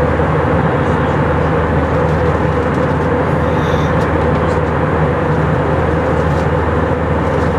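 Steady cabin noise inside an Airbus A319 airliner in flight: an even rush of engine and airflow noise with a constant hum.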